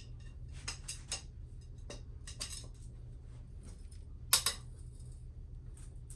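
Metal hand tools clicking and clinking as sockets and wrenches are handled on a motorcycle engine, with a loud sharp double clink of metal on metal about four seconds in.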